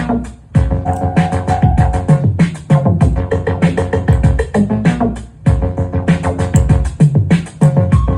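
Electronic music with a steady drum-machine beat and synthesizer notes.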